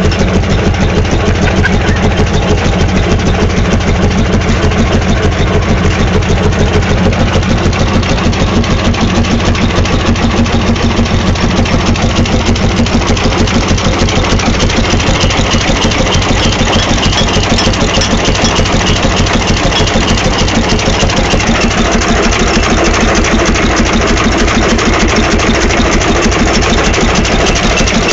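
1917 Townsend 10-20 tractor's engine running steadily, with an even, regular beat of firing pulses.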